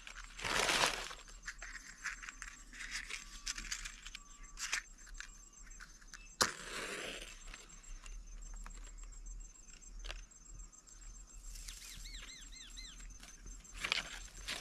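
Newspaper crumpled and rustled by hand, then a match struck sharply about six seconds in with a short hiss as it flares, and dry grass rustling and crackling as it is piled onto the lit paper near the end.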